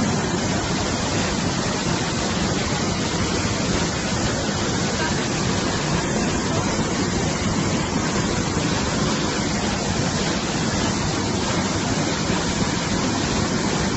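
Fast, muddy torrent of water rushing and churning, a loud, even rush of water that does not let up.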